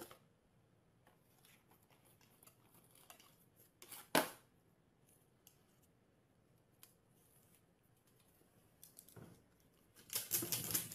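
Mostly quiet, with scattered faint clicks and taps: one sharper click about four seconds in and a quick run of clicks near the end.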